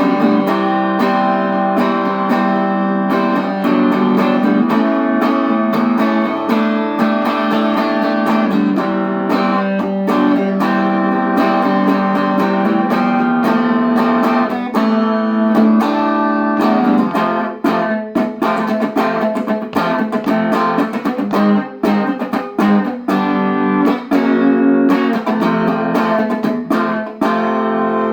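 1985 Made-in-Japan Fender Performer electric guitar played through a Peavey Valve King Royal 8 valve amp, with no pedals or effects. It plays a run of picked notes and chords, turning to short, choppy strums from about halfway.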